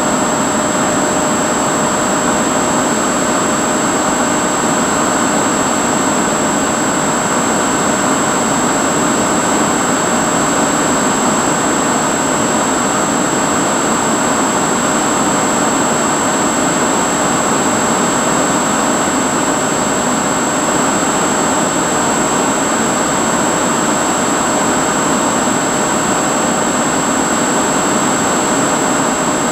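Steady whine of a Bixler 2 RC foam plane's electric motor and pusher propeller over rushing wind noise, picked up by the onboard camera at a constant throttle.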